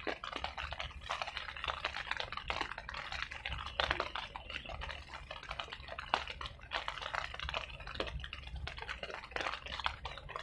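Wind rumbling on the microphone, with dense, irregular clicking and crackling over it.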